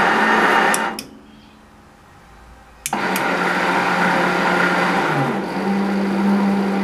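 Single-phase 2 HP metal lathe running, then shut off with a click of the stop button just under a second in; after about two quieter seconds it is restarted with another click and runs with a steady hum. A little after five seconds in the hum steps up slightly in pitch as the speed knob is turned.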